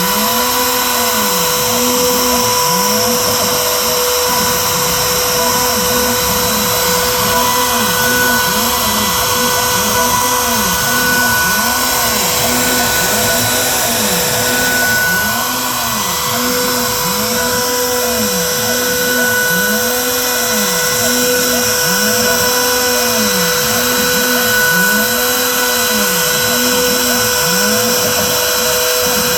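Shapeoko 5 Pro CNC router cutting: the Makita router spindle runs at a steady whine while the machine's motors sweep up and down in pitch over and over, about once a second, as the gantry traces curves.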